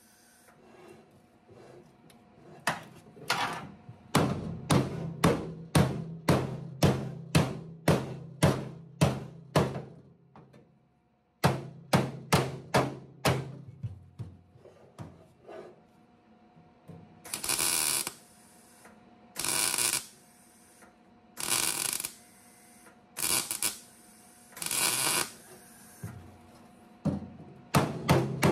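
MIG welder stitch-welding a sheet-steel patch: short tacks about two a second over a steady welder hum, then a few longer welds of about a second each, with pauses between them.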